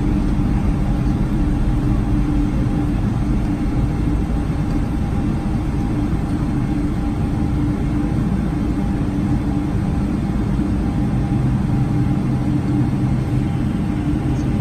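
Cabin noise of a Boeing 777-300 airliner taxiing, heard from a seat beside the wing: the jet engines run steadily at taxi power as a constant low hum and rumble, with a few steady low tones and a fainter higher one.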